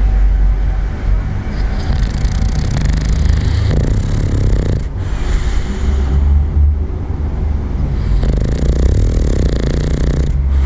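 A bulldog snoring with a deep, rumbling snore that runs without break, its breaths rising and falling every few seconds.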